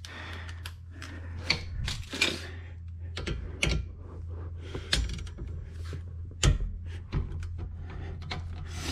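Metal hand tools being handled: irregular clicks, clinks and knocks from a ratchet and socket being worked and set down on a concrete floor, over a steady low hum.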